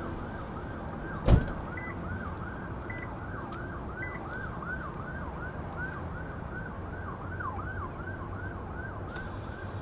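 A siren sounding in a fast yelp, about three falling swoops a second. There is a single loud thump about a second in and three short high beeps a second apart.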